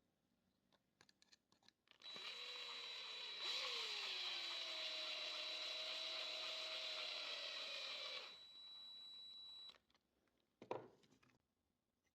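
Small electric motor whirring steadily for about eight seconds with a thin high whine, stepping louder soon after it starts, easing down and then cutting off. Light clicks come before it, and a single knock follows.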